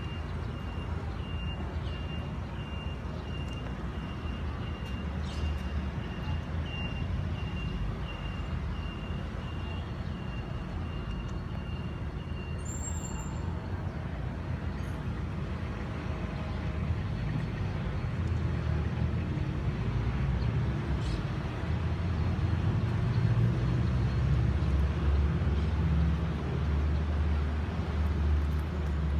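Low outdoor background rumble that swells louder in the second half. A faint, high, evenly pulsing tone runs through the first half.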